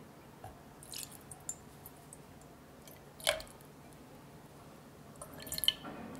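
A few small clicks and taps of kitchenware handling, with one sharper knock a little past halfway. Near the end, a cluster of light crackling clicks as liquid begins pouring into a white enamel saucepan.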